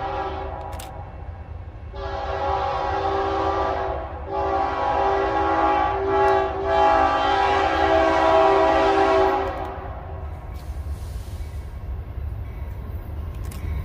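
BNSF freight locomotive's air horn sounding a series of long blasts as the train approaches, the last and loudest ending about nine and a half seconds in, over a steady low rumble of the oncoming train.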